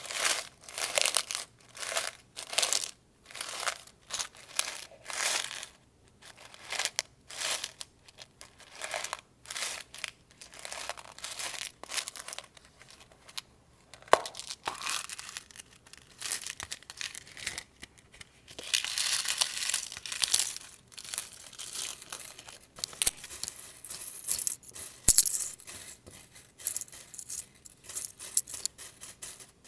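Metal paper clips handled close to the microphone: quick runs of light clicking, scraping and jingling strokes, with a denser spell of rustling scratching about two-thirds of the way through and a single sharp click a few seconds before the end.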